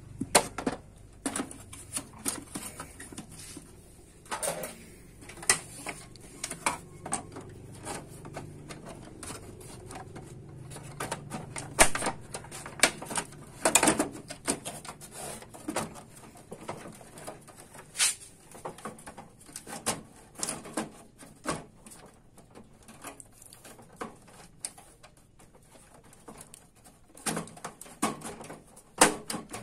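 Irregular plastic clicks, taps and knocks as parts and covers of a Canon imageRUNNER copier are handled, with a few sharper knocks partway through.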